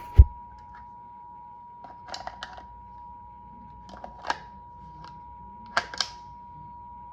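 A sharp knock, then scattered clicks and taps as equipment is handled and put back in place, over a faint steady tone.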